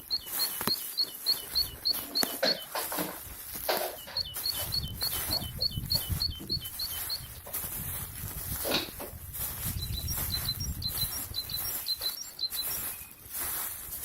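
A small songbird singing runs of quick, high, repeated two-note phrases, three runs of a couple of seconds each, with a low rumble and rustling underneath in the middle.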